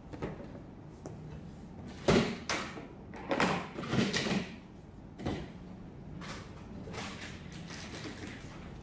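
Handling noises from the unpacking of a plastic toy playset: a few sharp knocks and clatters of hard plastic parts and packaging, with rustling between them. The loudest come about two to four seconds in, and another knock follows about a second later.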